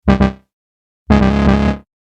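Two error sound effects in a row: a short electronic alert of two quick notes, then about a second later a longer low electronic tone lasting under a second.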